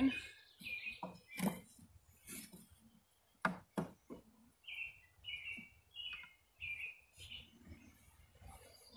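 Wooden beehive frames knocking and clacking as they are pushed together in the hive box, with a few sharp clacks about three and a half to four seconds in. Then a small bird gives a run of short chirps, about half a second apart.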